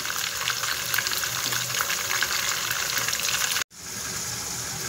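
Whole chicken frying in oil in a pan: a steady crackling sizzle with many small pops. About three and a half seconds in it cuts off sharply and gives way to a smoother, slightly quieter hiss from the pan under a glass lid.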